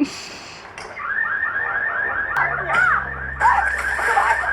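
Electronic alarm warbling rapidly, about four or five rising-and-falling sweeps a second, starting about a second in after a short burst of noise.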